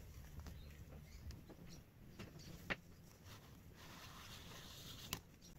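Faint handling noises from gloved hands working on a laser engraver's aluminium frame and cable: small ticks and taps, a sharp click about halfway through and another near the end, with a short rustle just before the second click.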